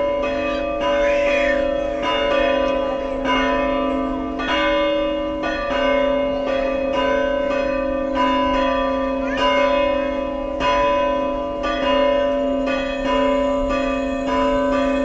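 Church bells ringing: steady strokes a little more than once a second, each one hanging on in a long ringing hum under the next.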